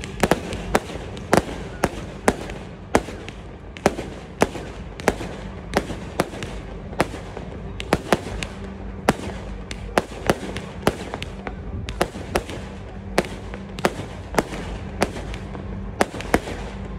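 Fireworks: aerial shells bursting in a rapid, irregular string of sharp bangs, about two a second, over a steady low background rumble.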